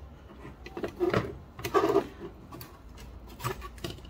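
A PCI video card being pushed and rocked into a motherboard's plastic PCI slot: two clusters of clattering knocks and scrapes about one and two seconds in, then a few lighter clicks near the end.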